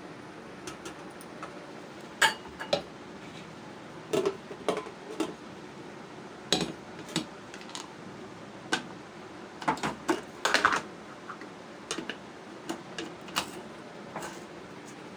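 Kitchen utensils handled on a counter: a steel jug, glasses and a plastic jar knocking and clinking as they are picked up, poured from and set down. Irregular single knocks, with a quick run of them about ten seconds in.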